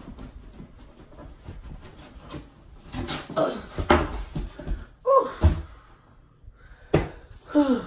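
Cardboard shipping box being handled and opened: rustling and scattered knocks of cardboard, with a sharp thud about seven seconds in. Two short falling vocal sounds, like effort grunts, are mixed in.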